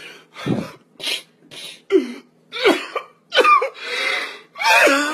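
A man crying hard: a string of short sobs and gasping breaths, some breaking into a wavering wail.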